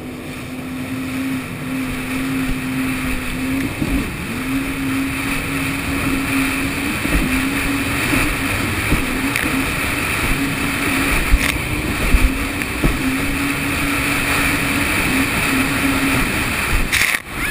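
Jet ski engine running at a steady throttle over open water, its note holding steady and dipping briefly about four seconds in, over a continuous rush of wind and spray. The engine note fades out shortly before the end.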